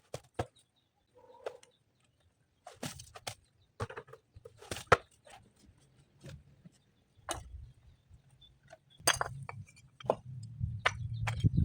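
Irregular knocks and clinks of stones and hand tools being handled during foundation stonework, with a low rumble starting about nine seconds in.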